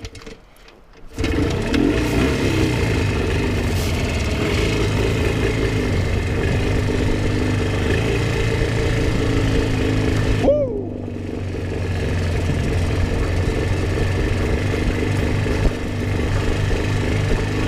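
Jawa 350 two-stroke twin engine is quiet for about a second, then comes in loudly under throttle as the bike pulls away and runs on steadily. About ten seconds in, the note drops briefly as the throttle is closed, then picks up again. The engine is running very lean, which the owner says robs it of power and keeps it from idling without constant throttle.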